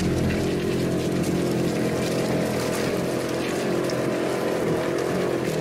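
Vehicle engine running steadily while the vehicle drives along a rough hillside track, heard from on board.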